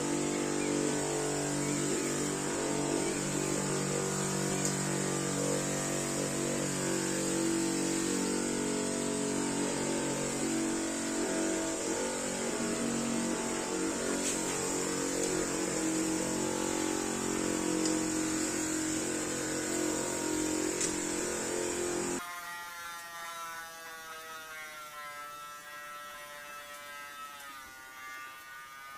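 A small motor running with a steady buzz, which cuts off abruptly about three-quarters of the way through and gives way to a fainter, wavering hum.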